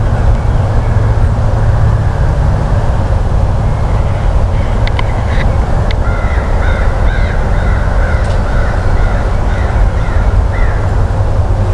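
A steady low rumble, with a bird giving a run of short calls over it from about halfway through.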